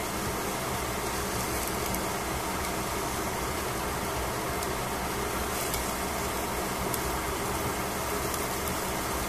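Vegetables sizzling and steaming in a covered frying pan, a steady hiss with a few faint crackles.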